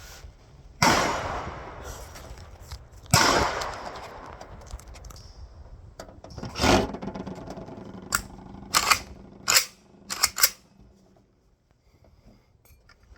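Gunshots on a shooting range: two loud cracks in the first few seconds, each trailing off in a long echo, then several shorter, sharper cracks a few seconds later.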